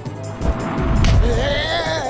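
Cartoon background music with sound effects: a low rumble comes in about half a second in, and a wavering pitched sound rises and falls in the second half.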